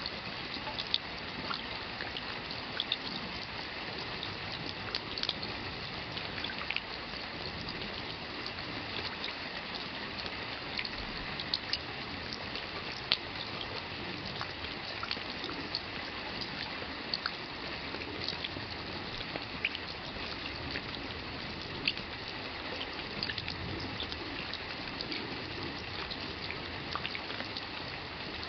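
Steady rain with many individual drops splashing and dripping close by, a constant hiss dotted with sharp drop ticks.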